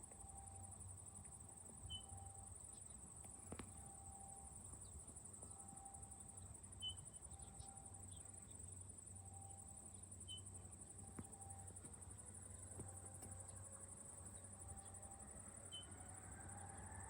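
Faint outdoor ambience: a steady high insect-like chirring, a short tone repeating about once a second, and a few brief bird-like chirps. In the last few seconds a faint aircraft engine whine rises in pitch and grows louder as the engines spool up for takeoff.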